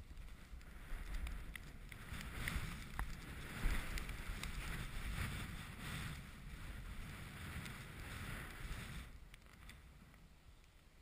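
A snowboard sliding and carving over snow: a steady rushing scrape with low rumble and wind on the microphone, loudest a few seconds in and easing near the end.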